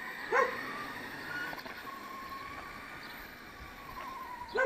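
Electric RC car on a 4S battery pack driving away, its motor a faint whine that slides slightly down in pitch. Two short, louder pitched sounds that rise and fall cut across it, about half a second in and again at the end.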